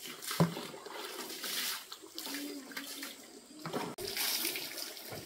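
Water splashing and pouring in uneven gushes, with a single knock about half a second in.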